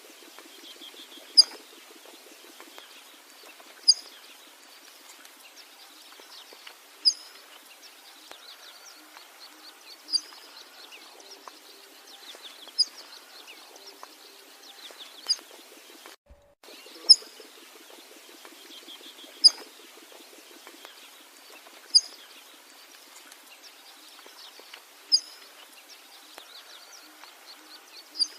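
Birdsong: a sharp, high single call repeats about every two and a half to three seconds, the loudest sound, over a steady background of softer chattering calls from other birds.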